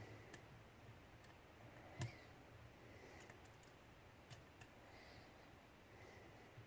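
Faint, scattered clicks of a lock pick working the pin stack of a half euro cylinder under tension, the loudest about two seconds in.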